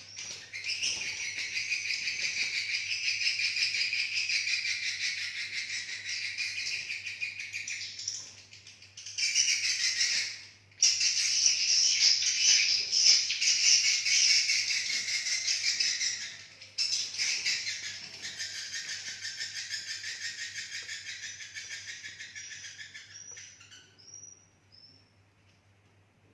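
A flock of swiftlets twittering together in a dense, continuous chatter of high chirps: their roosting calls. The chorus breaks off briefly a few times and fades out near the end.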